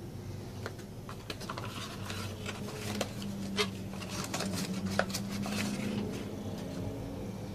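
Hands handling a cardboard phone box, its lid and inserts: scattered light taps, clicks and rustles of card, over a steady low hum.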